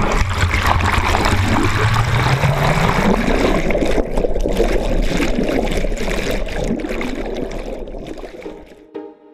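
Rushing, churning water and air bubbles heard from underwater just after a scuba diver's entry from a boat, fading away near the end.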